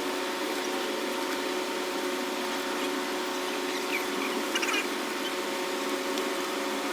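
A steady machine-like hum runs throughout, with a few faint short scratchy strokes about four to five seconds in.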